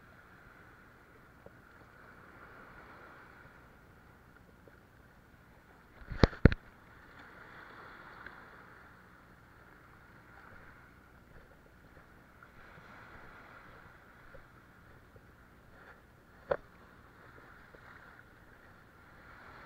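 Small sea waves washing and foaming over shoreline rocks in a soft, steady wash. Two sharp knocks come in quick succession about six seconds in, and a single sharp knock follows near the end.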